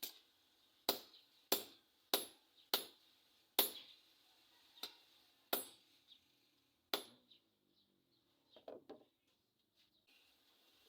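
Hand hammer striking steel on an anvil in forging: about eight sharp, ringing blows at an uneven pace, then a few softer clinks near the end.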